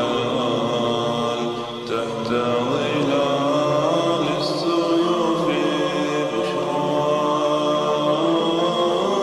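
Background Arabic nasheed: voices chanting a slow melody in long held notes.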